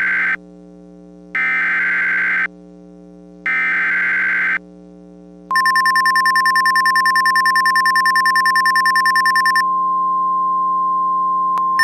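NOAA Weather Radio alert signal heralding a severe thunderstorm warning: three short screechy bursts of SAME digital header data about a second apart, then, about five and a half seconds in, the steady 1050 Hz warning tone. A rapid high pulsing beep sounds over the tone, breaks off for about two seconds, and resumes near the end, with a steady low hum beneath.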